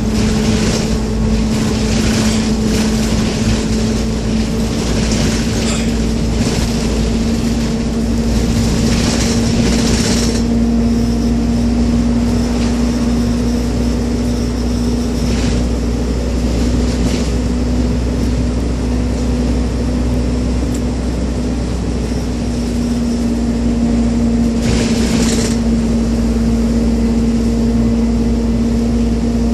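Minibus cabin on the move at about 40 km/h: the engine's steady drone over a constant low road rumble, with a few brief rushes of hiss, the longest about ten seconds in and another near twenty-five seconds.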